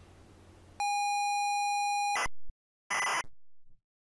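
Electronic outro sting: a steady high beep for about a second and a half that cuts off abruptly, then about three seconds in a short crackly digital burst followed by fainter echoing repeats.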